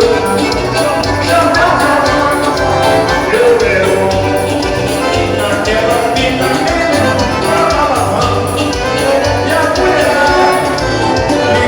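Band music with singing over a steady beat and a pulsing bass line.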